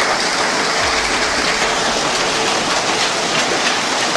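Intense hail and rain pelting down in a storm: a loud, dense, steady hiss made of many small impacts, with a brief low rumble about a second in.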